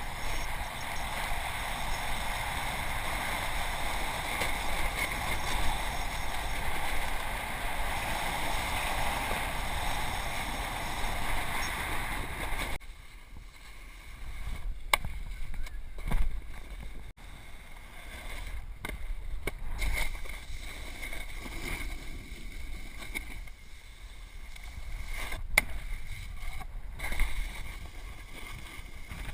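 A snowboard sliding and scraping over packed snow, a steady rushing hiss. About 13 seconds in the rushing drops sharply to a quieter, uneven scrape with a few sharp knocks.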